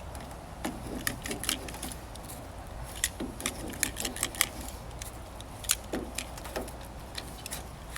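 Irregular light clicks and taps from screen mesh being pulled tight and worked into an aluminium screen-enclosure frame, over a steady low rumble.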